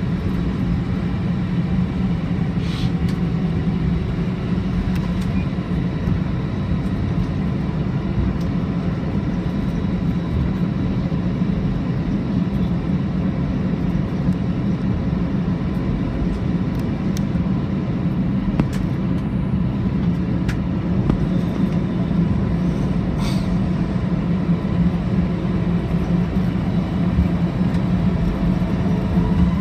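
Steady low rumble inside the cabin of an Airbus A319 taxiing, its engines at taxi power and the airframe rolling over the pavement, with a few faint clicks.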